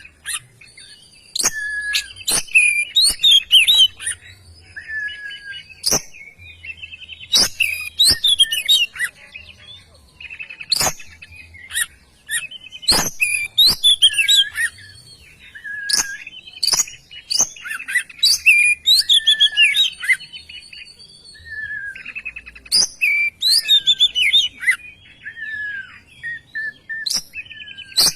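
Oriental magpie-robin (kacer) singing vigorously: a loud, varied song of whistled phrases mixed with sharp, rasping clicks, coming in bursts with short pauses between them.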